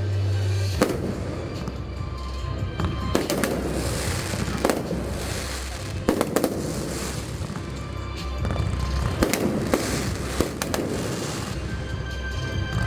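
Aerial fireworks bursting in a string of separate bangs with crackling, about one every second or so, over music playing.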